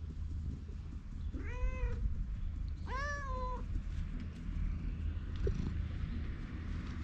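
Ginger stray cat meowing twice, about a second and a half apart, the second call a little longer.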